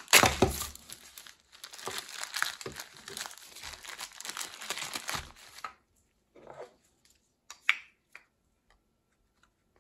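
Plastic parts bag crinkling and rustling as it is handled and opened, starting sharply and running for about six seconds; then a few light clicks as the plastic clutch quadrant is taken out and handled.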